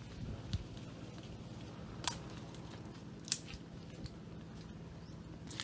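Sharp snaps of twigs and fruit stems breaking in a fruit tree as fruit is picked: three distinct cracks, about half a second, two seconds and a bit over three seconds in, the first with a low thump.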